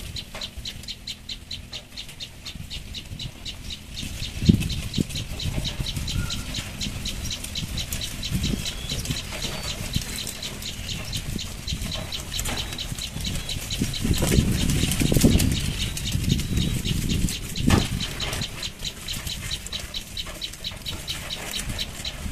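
A cooking fire being lit: dry kindling crackling with a fast run of small pops, and a couple of knocks as wood is handled.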